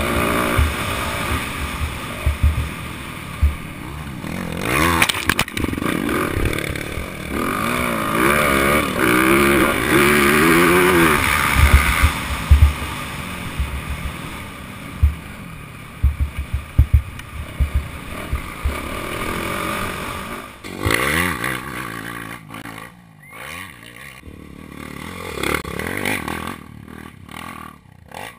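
Motocross bike engine heard close from the rider's helmet camera, revving up and down over the ride with the throttle. Wind and bumps thump on the microphone. It runs quieter and more broken near the end.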